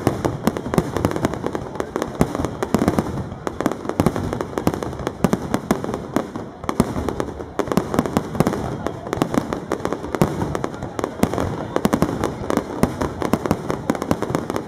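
Fireworks display: aerial shells and ground effects going off in a dense, continuous volley of overlapping bangs and pops, many every second.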